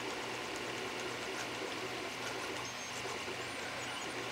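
Miniature 3D printer's stepper motors whirring through short printing moves: brief tones that start, stop and change pitch every fraction of a second, over a steady hiss and low hum.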